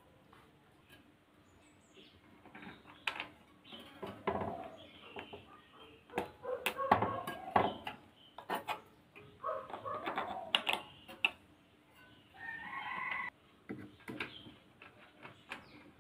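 Irregular clicks and clinks of small metal and plastic parts being handled on a bicycle wheel hub, as a washer and nut are fitted onto the axle. A bird calls once near the end, lasting about a second.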